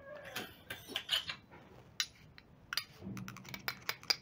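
Scattered light clicks and clinks of a small ceramic bowl tapping against a glass mixing bowl as salt is tipped in.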